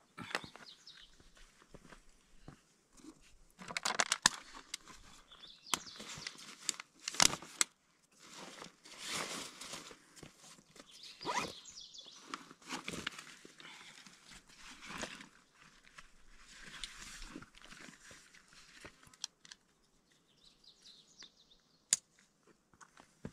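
Rustling and crinkling of a hiking backpack being handled and put on, with scuffs of boots on rock and a few sharp clicks, the sharpest near the end.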